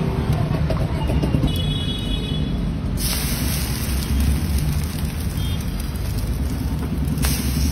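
Egg-soaked bread slice sizzling on a hot flat iron griddle (tawa). The sizzle brightens about three seconds in as the slice goes down. A steady low rumble of road traffic runs underneath.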